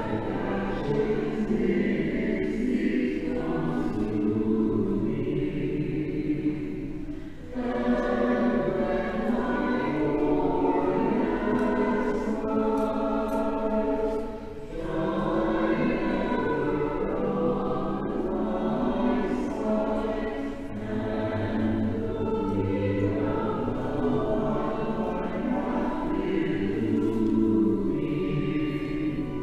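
A choir singing in several voices from a recording of singers performing together remotely (a virtual choir), phrase by phrase, with short breaks about seven and a half and fourteen and a half seconds in.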